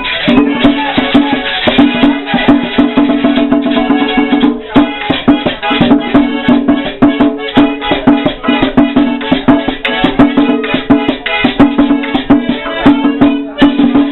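Live merengue típico from a conjunto típico band, with a fast, dense percussion beat running under held melody notes.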